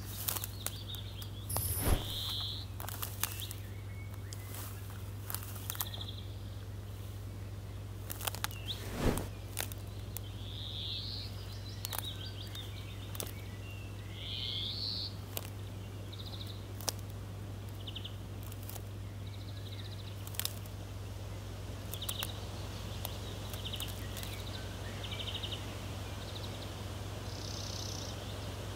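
Woodland ambience: birds chirping in short scattered calls, with a few sharp snaps and clicks, the loudest about two and nine seconds in, over a steady low hum.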